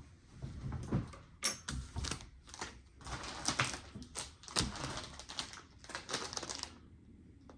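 Hands handling fishing lures and their plastic packaging: irregular clicks and knocks with stretches of crinkling plastic, which stop near the end.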